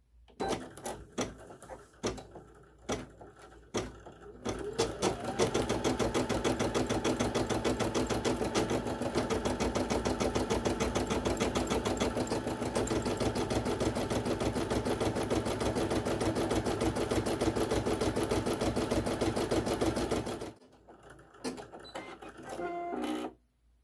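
Brother PE800 embroidery machine stitching a design into felt. A few separate clicks as it starts, then fast, steady needle stitching for about fifteen seconds that stops abruptly, followed by a few more clicks.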